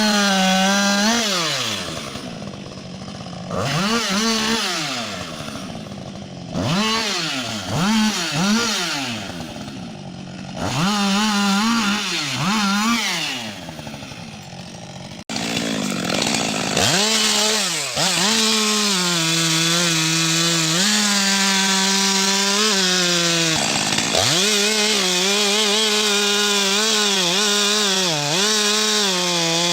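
Two-stroke chainsaw revving in short bursts, each rising to full throttle and falling back about every two seconds. About halfway through it changes to running at high revs almost steadily, with brief dips as it cuts through wood.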